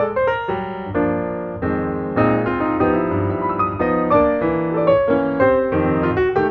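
Background piano music: a steady flow of notes and chords at a moderate pace.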